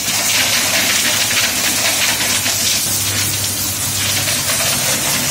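Pressure washer on high pressure, its water jet hitting a pair of motocross boots: a loud, steady hiss of spray. A low hum under it grows stronger for about a second midway.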